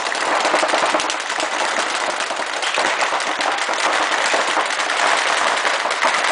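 Rapid, near-continuous fire from several reball markers shooting reusable rubber balls, echoing in a sports hall.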